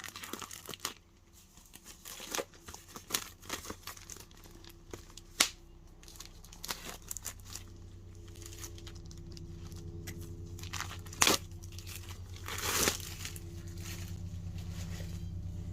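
Plastic wrapping crinkling and tearing as sealed game components are opened by hand: irregular sharp crackles and rips, the loudest about five and eleven seconds in. A steady low hum underneath grows gradually louder through the second half.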